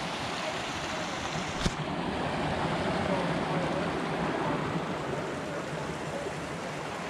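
Mountain creek running over boulders, a steady rush of water, with a single sharp click about a second and a half in.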